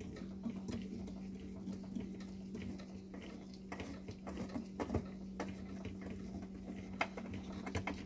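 Scattered light clicks and scrapes of a metal screw being turned by hand into an ABS plastic projector bracket, with gloved hands handling the plastic headlight housing. A steady low hum runs underneath.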